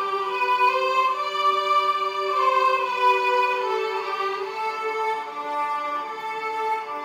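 Background music: a violin melody with sustained notes over a soft accompaniment.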